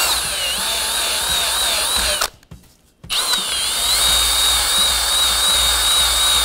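Cordless drill spinning a rubber decal-remover eraser wheel against car paint, rubbing off leftover emblem adhesive: a steady high motor whine that wavers as the wheel is pressed in. It stops just after two seconds, starts again about a second later and spins back up to a steady whine.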